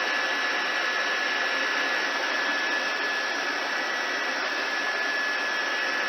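Steady rushing noise with a constant thin high whine: police helicopter's turbine and rotor noise picked up through the crew's headset intercom.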